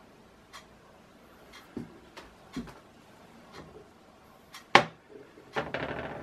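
Scattered light knocks and clicks of a plastic bottle and small tools being handled on a worktop, with one sharp click about three-quarters of the way through and a brief scraping rustle near the end.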